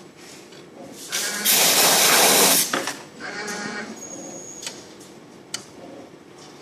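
CNC wire bending machine at work: short motor whines as it feeds and bends the steel wire, and a loud hiss lasting about a second in the middle. A sharp click comes near the end.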